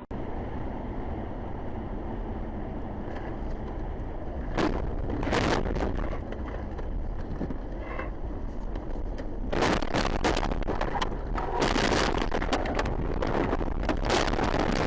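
A moving car's road and engine rumble, with a couple of sharp knocks about a third of the way in and a dense run of crackling and knocking through the second half.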